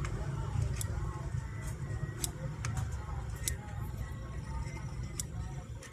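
Scattered sharp light clicks of small metal repair tools working on a mobile phone's LCD solder points, over a steady low background rumble.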